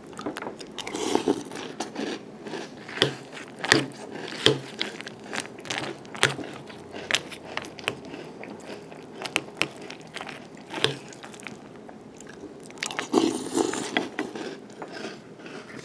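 Crunchy chewing of a mouthful of Reese's Puffs Bunnies, a puffed corn cereal in milk, with irregular sharp clicks of a metal spoon against the bowl.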